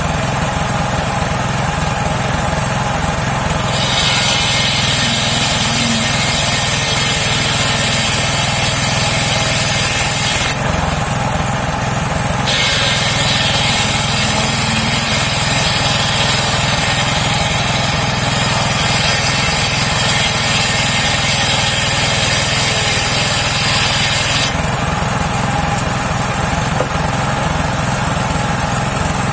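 Homemade circular sawmill running steadily on its engine, its blade cutting through rain tree wood twice: a long cut starting about 4 seconds in and lasting about six seconds, and a second, longer one from about 12 seconds in to about 24 seconds.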